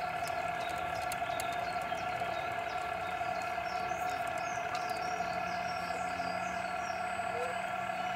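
A machine running with a steady whine that holds one constant pitch, with faint high ticks and a few short high chirps in the middle.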